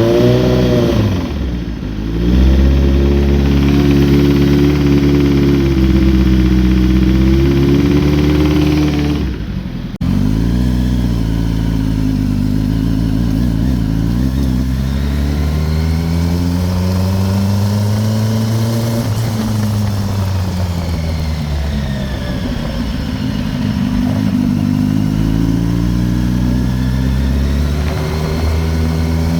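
2008 Kawasaki ZX-10R's inline-four engine running, not fully warmed up, the revs blipped at the start and then swelling slowly up and down. The owner hears a knocking noise from it and is trying to find its cause.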